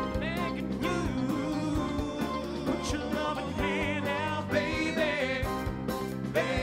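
Four male singers performing live in vocal harmony over a band with electric guitar, the lead voice singing with a wavering vibrato on held notes, the band keeping a steady beat.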